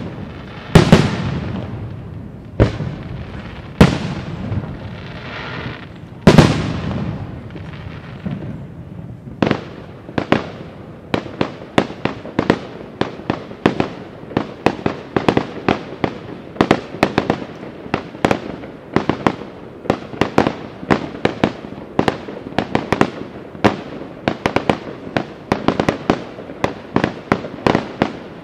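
Aerial fireworks display: a few heavy shell bursts with a rolling echo in the first six seconds or so, then from about nine seconds on a rapid run of sharper, smaller bangs, several a second.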